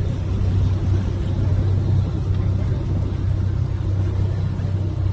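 Tour boat's motor running steadily on a canal cruise, a constant low hum with rumble.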